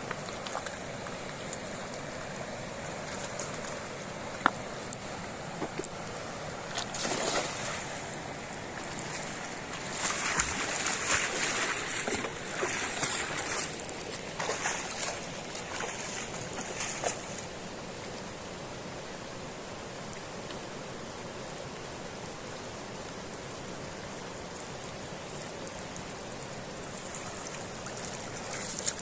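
Running water with bursts of splashing and sloshing, busiest between about 10 and 17 seconds in.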